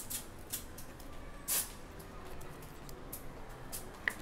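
Soft rustling and scraping of a trading card being handled in a clear plastic sleeve: a few short swishes, the loudest about a second and a half in, and a small click near the end.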